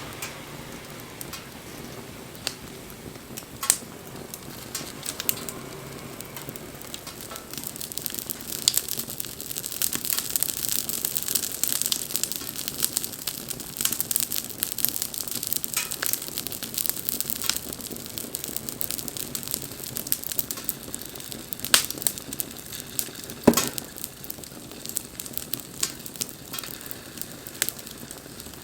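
Wood bonfire burning, crackling and hissing continuously, with occasional sharp pops; the two loudest pops come close together in the later part.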